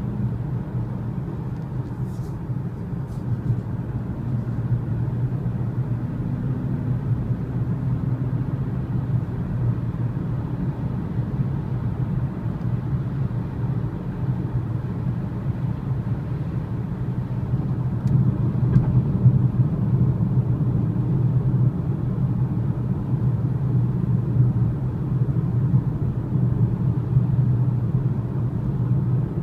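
Steady low rumble of road and engine noise inside the cabin of a BMW 335i Gran Turismo cruising at motorway speed. A couple of faint clicks come about two seconds in.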